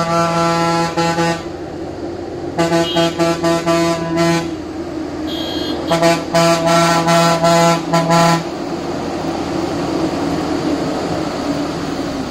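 Truck horn honking at a blind hairpin bend to warn oncoming traffic: one long blast, then a run of short toots about two and a half seconds in and another run from about six seconds, with a brief higher beep from another vehicle in between. After the horn stops, a heavy vehicle's engine grows louder as it climbs up into the bend.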